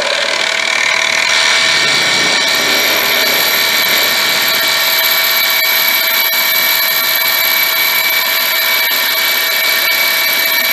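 Benchtop mini mill driving a half-inch drill bit down into aluminum: a steady high-pitched whine over a cutting hiss, with a still higher whine joining a couple of seconds in. The spindle speed for this cut may be a little high.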